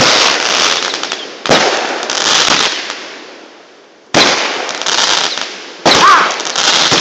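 Fireworks going off: four sharp bangs a second or two apart, each followed by a dense crackle that fades away. Near the end a short whistle rises and falls.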